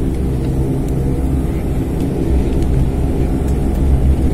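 Turboprop airliner's engine and propeller running, heard from inside the cabin: a steady drone with a humming tone that grows slightly louder.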